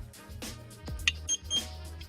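Background music with a steady low bass line, with a short click about a second in and two brief high-pitched beeps just after.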